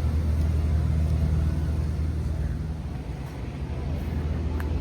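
A steady low rumble, with one short click near the end.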